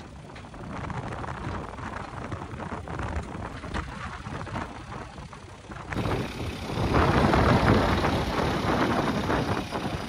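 Diesel engine of heavy farm machinery running. About six seconds in, the sound cuts to a louder, rougher stretch.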